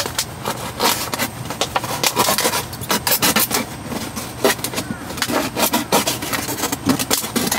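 Plastic PET water bottle crackling and scraping in irregular bursts as it is cut down into a funnel.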